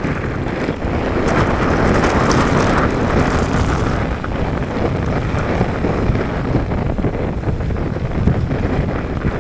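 Wind rushing over the microphone with the rumble and rattle of a mountain bike rolling over rough trail.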